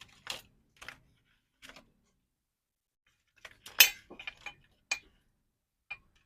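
Scattered sharp clicks and clinks of small hard objects being handled. There are a few in the first two seconds, a quick cluster a little past the middle with the loudest knock in it, and two single clicks near the end.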